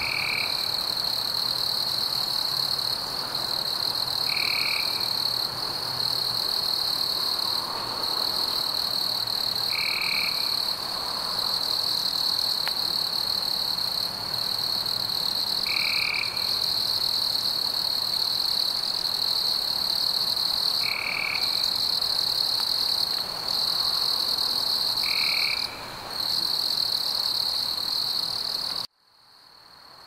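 A chorus of calling animals: a steady high-pitched trill in sections of a second or two, with a short call repeating about every five seconds. It cuts off suddenly near the end.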